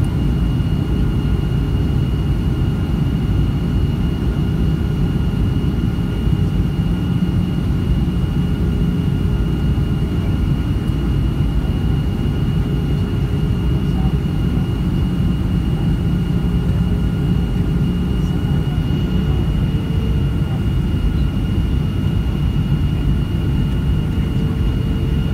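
Boeing 737 jet engines heard inside the cabin on approach: a steady low rumble with a high, steady whine over it. A lower tone in the engine noise steps up slightly about two-thirds of the way through.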